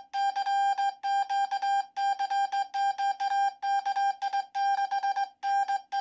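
Morse code sent by hand on a WWII J-37 straight key, sounding as a code practice oscillator's beep. A single steady, fairly high tone is keyed on and off in an uneven string of dots and dashes.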